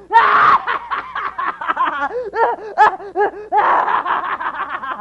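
A possessed character's cackling laugh. It opens with a loud burst, then runs on as rapid, rhythmic 'ha-ha' pulses, and swells loud again after about three and a half seconds.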